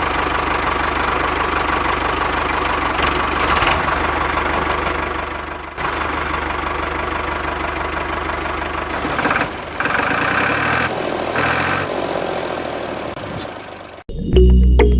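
A motor running steadily, broken by two abrupt cuts, about six seconds in and near the end. Music with a steady beat begins right at the end.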